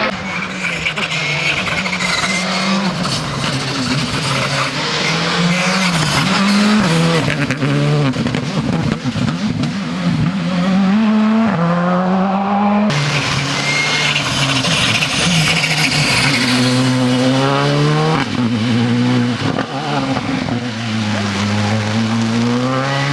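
Rally cars at full throttle on a closed stage, engines revving up through the gears in repeated rising sweeps that drop back at each shift. The sound cuts abruptly about 13 seconds in to another car doing the same.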